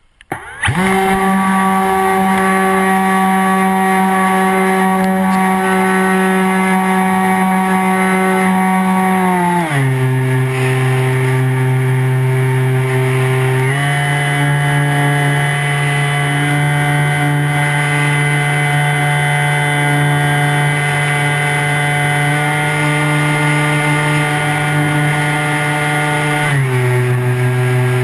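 Radio-controlled model aircraft's motor and propeller starting up about half a second in and running steadily, heard close from its onboard camera. The pitch drops about ten seconds in, rises again about four seconds later, and drops once more near the end as the throttle is changed.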